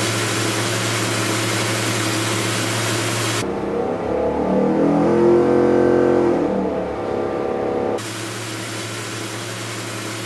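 Freshly rebuilt Ford NASCAR V8 racing engine running on an engine dyno. It runs steadily, then revs rise and fall again over a few seconds, and it settles back to steady running near the end.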